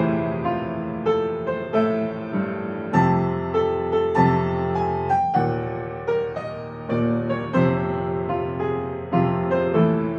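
Background piano music, gentle chords and notes struck about once or twice a second and left to ring.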